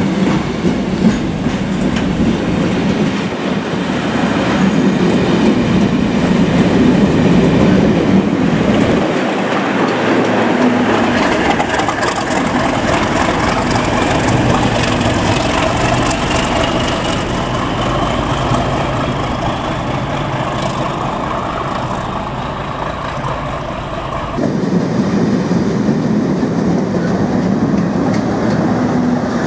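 A Colas Rail Class 37 diesel locomotive running loudly as its train passes, with wheels clattering over the rail joints. A high whistle rises slowly in pitch about halfway through.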